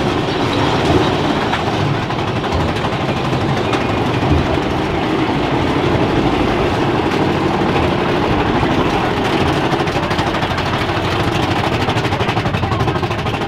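Big Thunder Mountain Railroad mine-train roller coaster running along its track: a steady rattling rumble, heard from a seat on the moving train.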